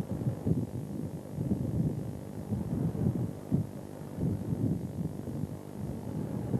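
Fishing boat's engine running steadily as a low hum, with uneven low thumps over it.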